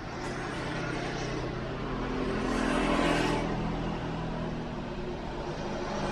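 A motor vehicle's engine running nearby, a steady noise with a low hum that swells about three seconds in and then eases.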